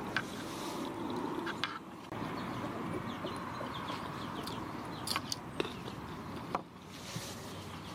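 Utensils clicking a few times against clay bowls during a meal, with a hen clucking in the background.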